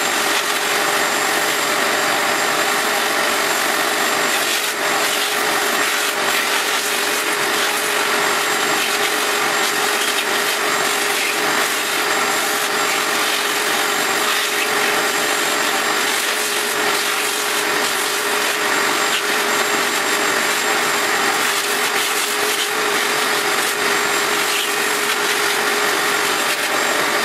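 Shop vacuum running steadily, its nozzle drawn along the routed cut lines of a masonite sheet, sucking up the dust and chips left by the CNC router.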